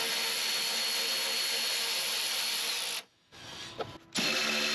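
Milwaukee cordless electric ratchet running on a 10 mm bolt to loosen it: a steady motor whir with a thin high whine for about three seconds. It stops, then starts again near the end.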